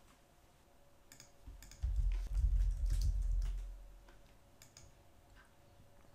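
Computer keyboard keystrokes and mouse clicks, scattered single clicks as a short word is typed. A low rumble, louder than the clicks, runs for about two seconds in the middle.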